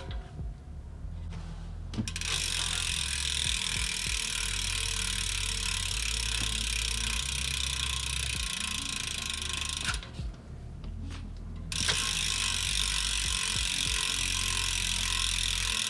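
Novatec rear hub's freehub clicking as the wheel spins freely, a fast even ratcheting buzz of pawls. It stops twice, near the start and about ten seconds in, for under two seconds each, then starts again.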